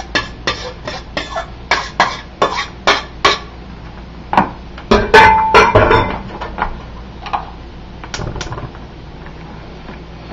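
A metal spoon knocking and scraping against a stainless steel mixer bowl and a glass bowl while a sticky ground pork mixture is spooned out: a quick run of taps at about three a second, then scattered louder clinks with a brief ring about five seconds in.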